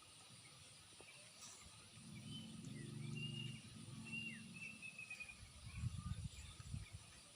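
Faint bird calls: a few thin high whistles and short downward chirps. Under them a low droning hum rises and fades in the first half, and a quick run of dull low thumps near the end is the loudest part.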